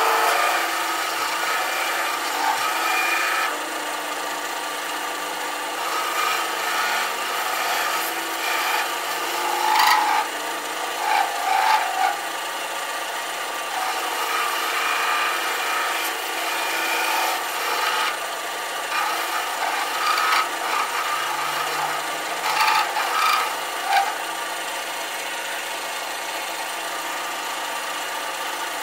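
Metal lathe turning a steel rifle barrel while a tool bit cuts a wedding-band ring into it: a steady scraping cutting noise over the lathe's running hum. A few short louder scrapes come about ten to twelve seconds in and again about twenty-two to twenty-four seconds in.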